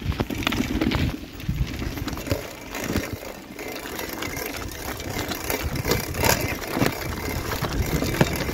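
Mountain bike rolling over loose gravel and stones: the knobby tyres crunch on the rocky dirt track and the bike rattles and knocks over the bumps, heard close to the front wheel.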